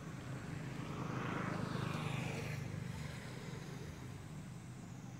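A motor vehicle passing, its noise swelling and fading over about two seconds in the middle, over a steady low engine hum.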